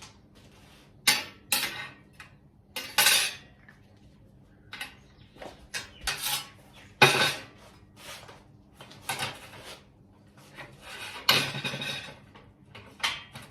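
Steel parts clinking and scraping against each other in about a dozen short, irregular clatters, as a steel frame gusset is handled and test-fitted.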